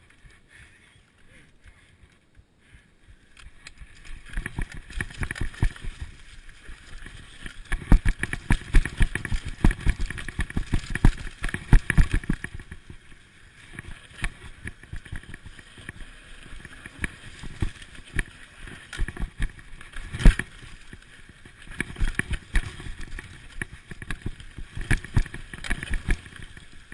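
Trek Remedy full-suspension mountain bike rattling and knocking down a rocky dirt trail at speed, with tyre noise and wind on the microphone. It starts quiet, then dense, irregular clattering and sharp thuds set in about four seconds in, the loudest jolts coming about a third of the way in and again past the middle.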